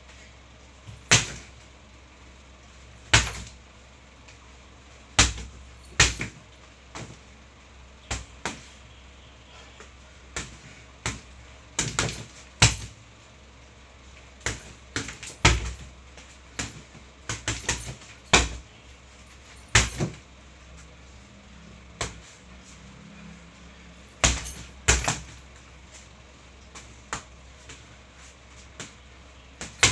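Boxing gloves punching a hanging heavy bag: a run of sharp thuds, some single and some in quick bunches of two to four, with gaps of a second or two between.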